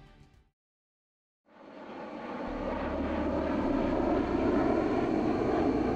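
Jet fighter engines of a pair of Chengdu J-20s flying past, a steady noisy roar that fades in after a second of silence and grows louder.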